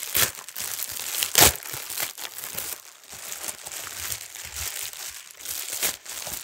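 Packaging crinkling and rustling as a mailed package is unwrapped by hand, with sharp ripping sounds; the loudest comes about a second and a half in.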